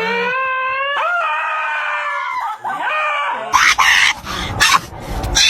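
A dog howling in two long, wavering notes, trailing off in shorter slides. After about three and a half seconds come loud, rough, noisy bursts.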